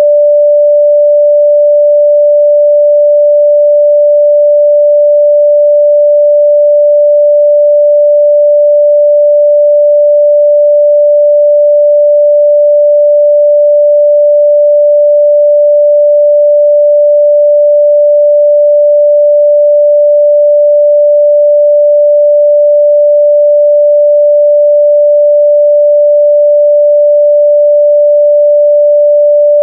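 Pure 588 Hz sine test tone, held steady and loud at one unchanging pitch, with no harmonics.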